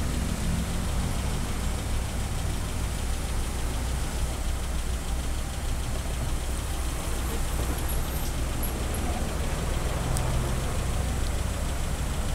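Several car engines idling in traffic stopped at a red light: a steady low rumble.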